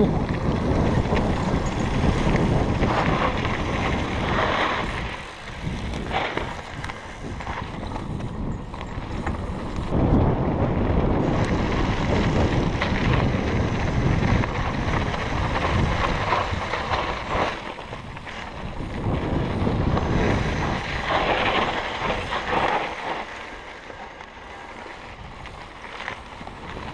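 Mountain bike rolling down a dirt and rock downhill trail: tyre noise and the bike knocking and rattling over the rough ground, with wind buffeting the microphone. It is quieter for a stretch near the end.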